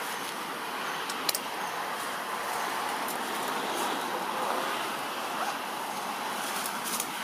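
Steady outdoor background noise, an even hiss-like rumble, with a single sharp click about a second in.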